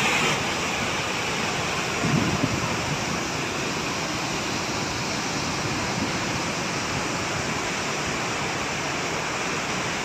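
Bogatha waterfall in full spate, a broad curtain of water pouring over rock ledges: a steady, even rush of falling water.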